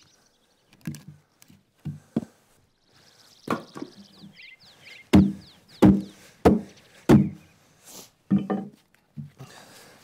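Axe blows on fir wood, knocking chainsaw-cut blocks loose from the hollow of a log trough: a series of dull wooden knocks, lighter at first, then four heavy strokes about two-thirds of a second apart from about five seconds in, and one more near the end.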